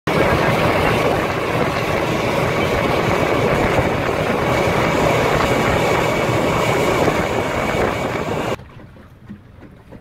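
Boat running under way: a steady engine with wind and water noise. It cuts off suddenly near the end, leaving a much quieter background.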